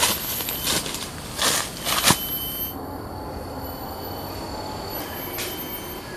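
Footsteps and rustling leaves and twigs as a person walks through undergrowth, with several short crackles. About three seconds in these stop, leaving a steady faint hum.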